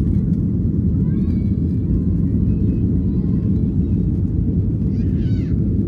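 Steady low rumble of a passenger airliner's engines and cabin noise, with faint voices in the background.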